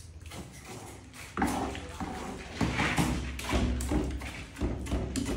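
Steel trowel scraping and slapping cement mortar across the back of a ceramic floor tile, in uneven strokes that grow louder about a second and a half in.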